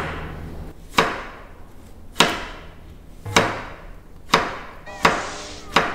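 Kitchen knife chopping an ingredient on a cutting board: six slow, single strokes about a second apart, each a sharp knock with a short ring.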